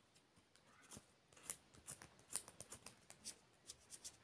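Faint, short scraping strokes, irregular at about two a second: a scratch-off lottery ticket being scratched to uncover its numbers.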